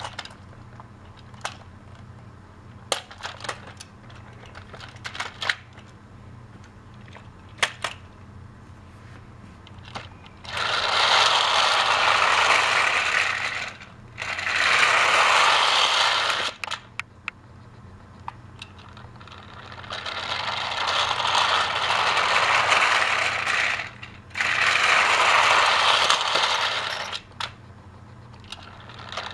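Battery-powered Trackmaster toy trains running on plastic track: a loud mechanical rattle of motor and gears, in five spells of about three seconds each with short quiet gaps between. The first ten seconds hold only scattered sharp clicks.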